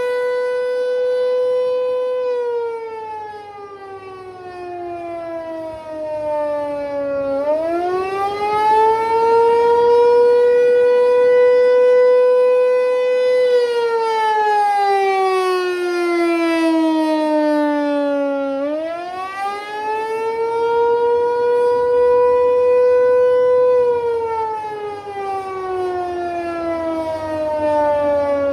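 American Signal T128 outdoor warning siren sounding a loud wail, the attack signal. The pitch climbs quickly, holds for several seconds, then slides slowly down, and the cycle repeats about every eleven seconds.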